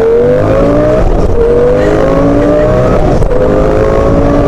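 Twin-turbo Lamborghini Gallardo V10 under hard acceleration, heard from inside the cabin: the engine note climbs steadily in pitch, with two upshifts, about a second in and a little past three seconds in, each dropping the pitch before it climbs again.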